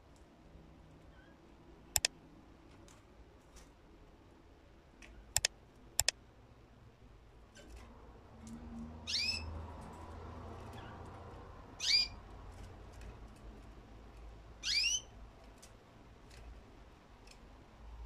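Caged canary giving three short, rising chirps, about three seconds apart, with a few sharp clicks in the first half.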